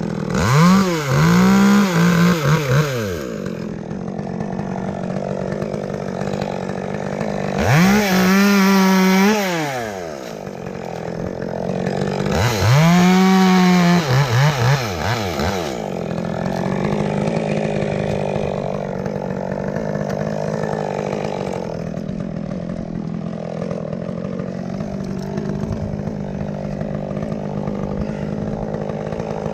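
Two-stroke chainsaw revved to full throttle three times, each time for two to three seconds, then running steadily at lower speed.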